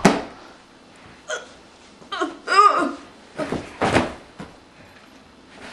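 A girl's short wordless vocal bursts, breathy and stifled, a few of them between about one and four seconds in, after a sharp knock right at the start.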